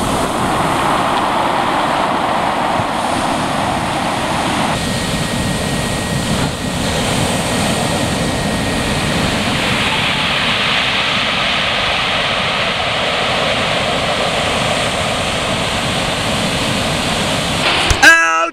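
Heavy ocean surf breaking and rushing, with wind on the microphone: a steady, even noise. Near the end it cuts off in a brief loud sound with a ringing note.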